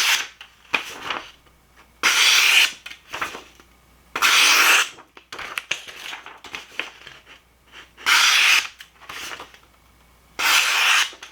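A sharp D2 steel folding knife blade slicing through paper: five slicing cuts about two seconds apart, each lasting about half a second to a second, with small paper rustles and clicks between them.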